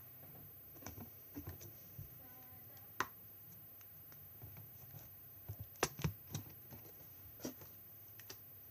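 Homemade glossy slime being squeezed and poked by hand, giving off irregular sharp clicks and small pops, the loudest about three seconds in and again around six seconds.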